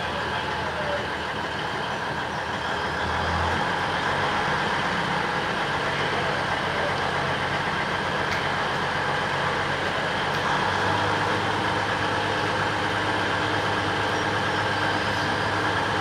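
Alishan Forest Railway DL-class diesel locomotive idling at a standstill, a steady engine drone whose low hum changes pitch about three seconds in and again about eleven seconds in.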